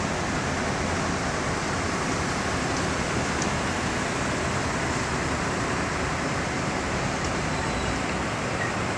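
Steady, even rushing background noise with no distinct events standing out.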